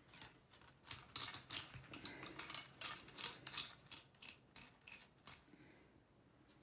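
Faint, rapid crackling and ticking of old coated whipping thread being unwound by hand from a carbon fishing rod blank at a rod ring, dying away near the end.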